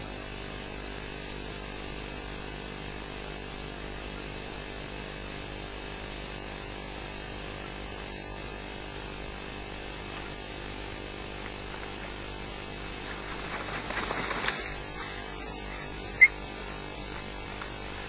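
Steady electrical hum and hiss from an osprey nest camera's microphone. About three-quarters of the way through there is a brief rising rustle, then a single short, sharp, high-pitched sound from an osprey on the nest.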